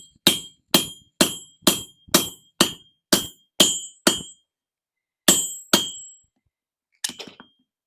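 Hand hammer striking a steel punch to drive a hole through hot steel bar stock, about two ringing blows a second, then a pause and two more blows. A lighter clatter follows near the end.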